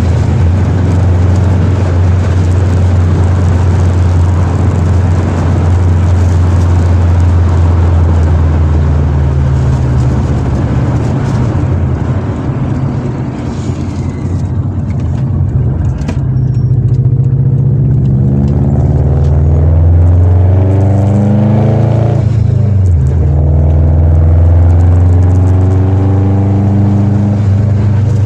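Straight-piped Subaru Impreza WRX's turbocharged flat-four rumbling, heard from inside the cabin while driving. About halfway through it eases off briefly. Then the pitch climbs as the car accelerates, drops sharply at a gear change, and climbs again.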